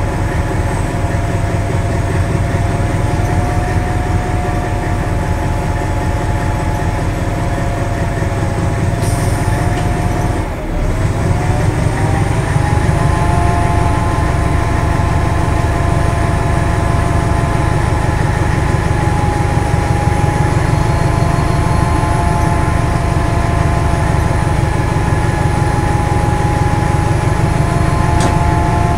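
Hastings DEMU's English Electric diesel engine running steadily under power, heard from the cab. About ten seconds in it dips briefly, then picks up to a slightly higher, louder note and holds it.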